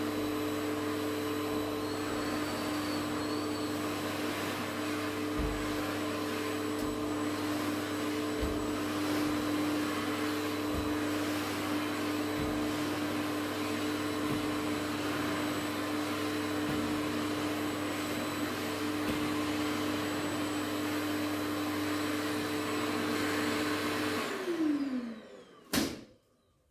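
Red canister vacuum cleaner running steadily, a motor hum with a high whine and airflow hiss, with a few low thumps along the way. Near the end it is switched off and the motor winds down with a falling whine, followed by a single sharp knock.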